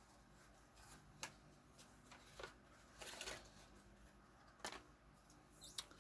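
Mostly near silence, broken by a few faint, short crinkles and ticks from a plastic parts bag being handled.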